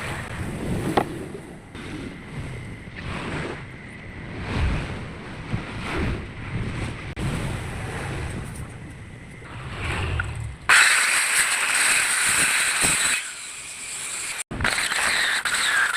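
Wood being cut for a tenon: irregular rubbing and knocking strokes at first, then about eleven seconds in a loud, high hissing cut that stops abruptly and resumes after a short break near the end.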